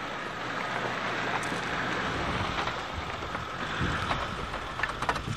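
1987 Suzuki Samurai 4x4 driving slowly past at close range on a dirt and gravel slope, heard as a steady rushing noise of engine and tyres mixed with wind on the microphone. A few sharp clicks come near the end.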